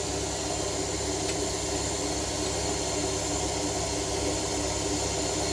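Steady machine drone, running at an even level with a low hum.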